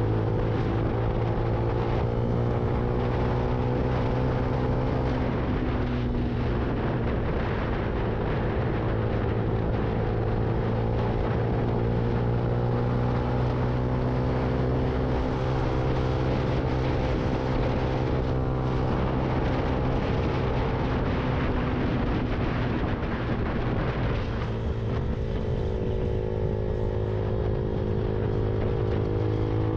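Lexmoto Viper 125 motorcycle engine running at cruising speed, its pitch sagging and climbing again a few times as the throttle is eased and reopened, under a constant rush of wind and road noise on the bike-mounted camera's microphone.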